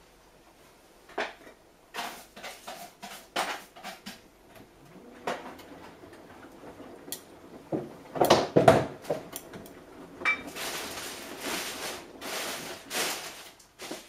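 Samsung Eco Bubble front-loading washing machine early in a cotton 90°C wash, its drum turning the load: scattered clicks and clunks, a louder burst of clattering about eight seconds in, then from about ten seconds a swishing hiss that rises and falls in surges as the drum turns.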